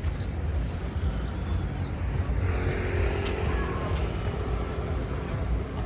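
Outdoor ambience on a beachfront walk: a steady low rumble, with faint scattered sounds above it.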